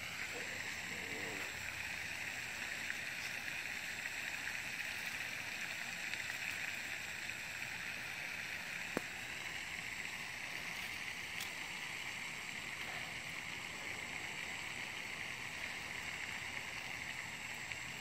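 Steady outdoor background with a high, even hiss, and one sharp click about halfway through.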